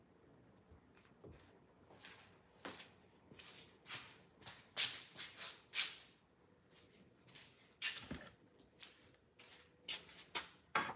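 Paintbrush strokes on stretched canvas: a series of short, irregular swishes and dabs, loudest in a quick cluster around the middle.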